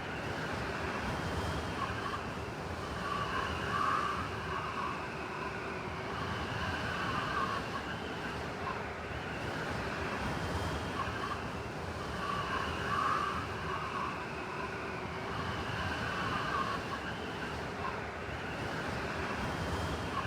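Blizzard wind sound effect: a steady rush of howling wind with a whistle that rises and falls, repeating as a loop about every nine seconds.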